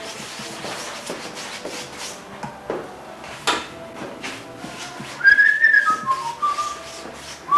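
A person whistling a few notes of a tune: a held high note, then lower notes stepping down and back up, starting about five seconds in. Before that, soft scratchy brushing as aircraft dope is brushed onto fabric.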